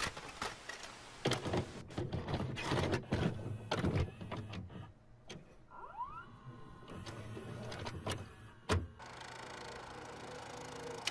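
VCR tape mechanism: a run of clicks and clunks with motor whirring as a cassette loads and starts to play, then one sharp click and steady tape hiss near the end.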